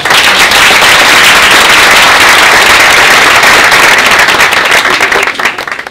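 A crowd applauding loudly, many hands clapping together, dying away near the end.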